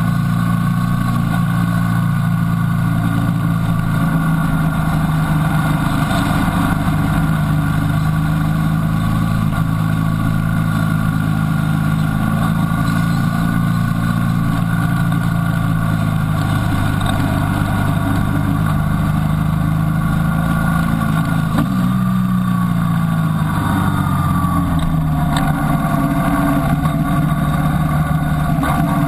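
Motorcycle engine running steadily under way, heard from the bike itself. About three-quarters of the way through the engine note falls and then holds steady at a lower pitch.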